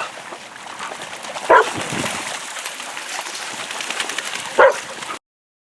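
A dog barks twice, two single sharp barks about three seconds apart, over a steady background hiss.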